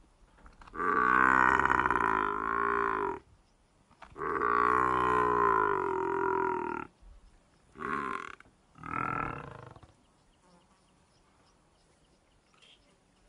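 Newborn calf bawling in distress, calling for its mother while a spotted hyena holds it: two long drawn-out calls, then two short ones, then it falls quiet.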